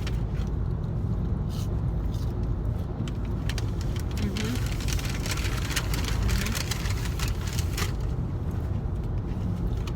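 Steady low rumble of a car heard from inside the cabin, with a run of short crackles and clicks in the middle.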